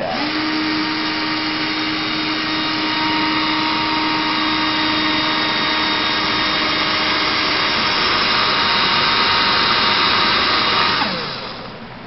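Cordless drill running steadily with a Kub Kar axle spinning in its chuck, a flat file held against the axle to file off the manufacturing burrs so the wheel won't catch. The motor gives a steady whine. About eleven seconds in the trigger is let go and the whine drops as the drill spins down.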